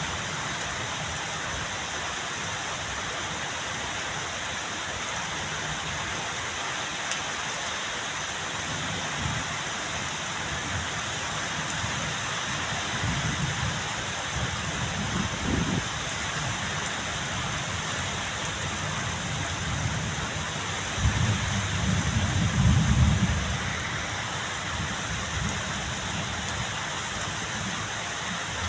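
Steady rain falling. A low rumble swells twice, weakly about halfway through and more strongly about three-quarters of the way in.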